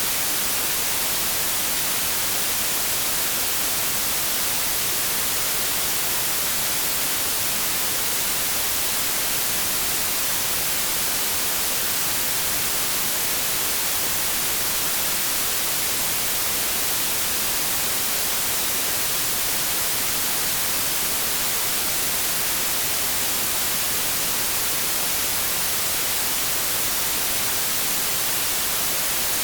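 Steady synthetic white noise, an unbroken bright hiss with its strength weighted toward the high end and little bass, unchanging throughout.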